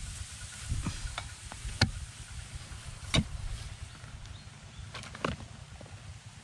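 Dry, cracked rice-field mud being handled and broken by hand: a handful of sharp knocks and cracks as clods are pried up, the loudest about two and three seconds in, over a low steady rumble.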